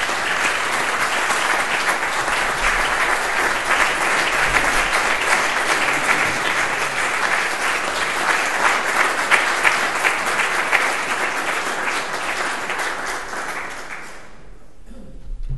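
Audience applauding, a dense steady clapping that fades and stops about a second and a half before the end.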